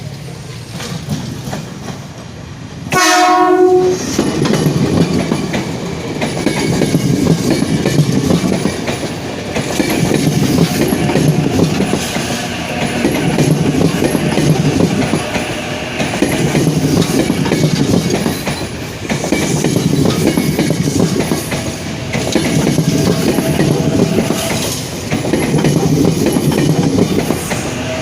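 Ex-Tokyo Metro 6000 series electric commuter train sounds one short horn blast about three seconds in, then runs close by over the turnouts with its wheels clattering, a loud rumble that swells and eases every few seconds.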